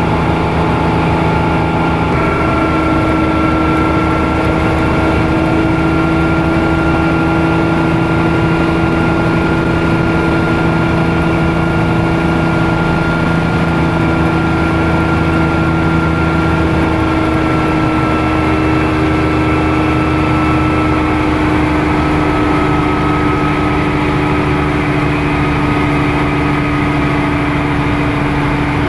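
A Bell OH-13 Sioux helicopter's piston engine and rotor running steadily, heard from inside the cockpit. The pitch shifts slightly as the helicopter lifts off and climbs.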